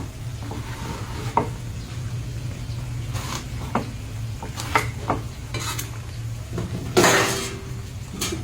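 Rat meat frying in fish sauce in a pan, stirred with a utensil that clinks against the pan several times, over a steady low hum. Near the end there is a louder, brief burst of noise.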